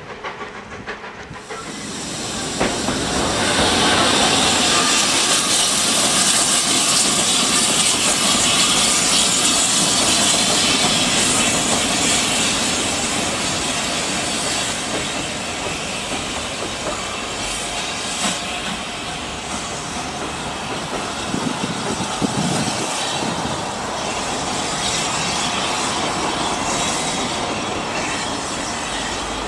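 Steam locomotive on the move, with a loud, steady hiss of escaping steam that sets in about two seconds in over the rumble of the train.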